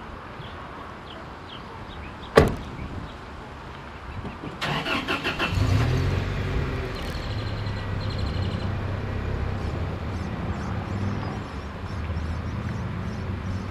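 A pickup truck's door slams once. A few seconds later the starter cranks for about a second, and the engine catches and settles into a steady idle.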